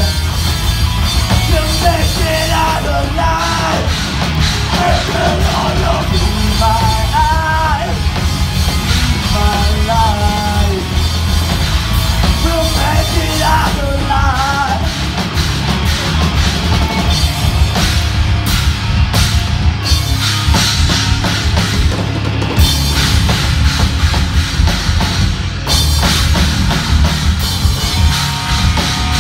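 Live rock band playing: electric guitars, bass guitar and drum kit, with a singer's voice over them for about the first half, after which the band plays on without vocals.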